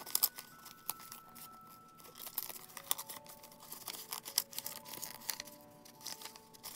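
Paper envelope being torn open by hand: a run of short rips and crinkles, sharpest just after the start and again around the middle.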